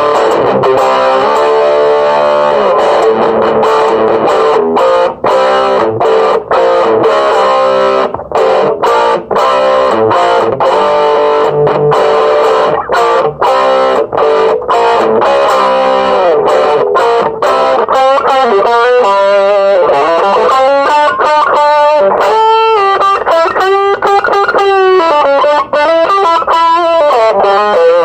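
Electric guitar with a distorted tone played through an Orange Crush Mini amp and its original speaker. Strummed chords with short stops give way, about two-thirds of the way in, to single-note lead lines with string bends.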